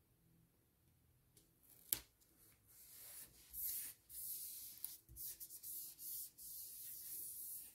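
Fingers rubbing and smoothing a floral sticker down onto a paper planner page: soft, papery swishing strokes in repeated passes. One sharp tap comes about two seconds in.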